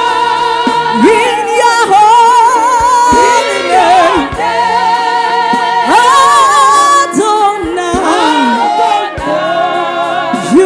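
Gospel praise singing: a voice singing with strong vibrato and sliding notes over long held accompaniment chords, with a few low beats underneath.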